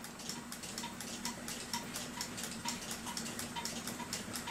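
Mechanical clock ticking steadily with evenly spaced ticks, over a faint steady hum.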